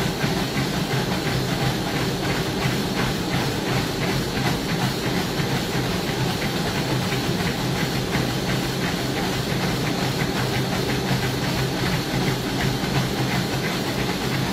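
Motorised treadmill running at speed, its motor and belt giving a steady hiss and hum, with a runner's quick, even footfalls thudding on the belt.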